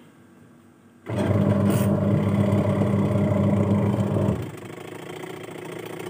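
Sanyo twin-tub washing machine's wash motor switched on by the timer about a second in, turning the pulsator through its newly replaced gearbox with a loud, steady hum. About three seconds later the motor cuts out and a quieter whir remains.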